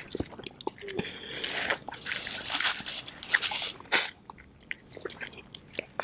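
Close-up eating sounds of chicken wings being pulled off the bone by mouth alone: biting, crunching and wet smacking with many small clicks. The loudest burst comes about four seconds in.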